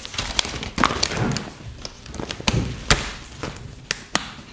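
A collapsible fabric softbox being unfolded and opened out: its cloth rustles, with several sharp clicks and knocks as it is handled.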